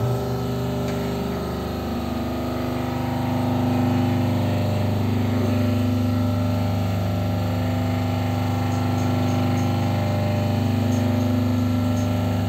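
Alloy wheel straightening machine running with a steady motor hum as it turns a motorcycle wheel on its rollers.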